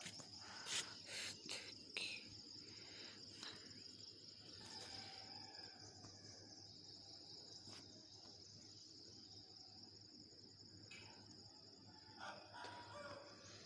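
Faint, steady, high-pitched insect trill, with a few soft knocks in the first two seconds.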